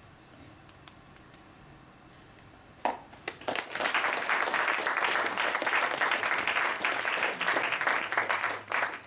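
An audience applauding, the clapping starting about three seconds in and stopping abruptly just before the end.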